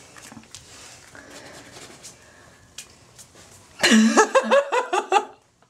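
A person's voice in a quick, high-pitched run of short sounds, about a second and a half long, starting about four seconds in after a stretch of quiet room noise with a few small clicks.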